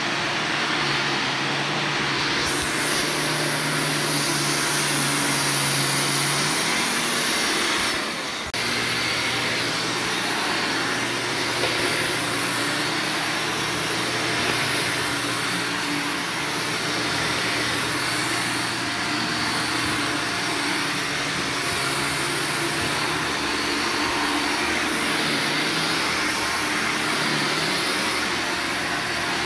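Shark upright vacuum cleaner running steadily as it is pushed over carpet, its motor hum holding steady apart from a brief dip about eight seconds in.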